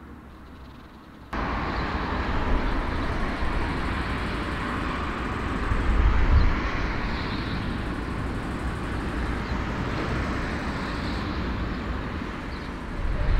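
Jet engines of a four-engined Airbus A340 airliner running as it taxis, heard as a steady broad rumble and hiss. It starts abruptly about a second in, after a faint low hum.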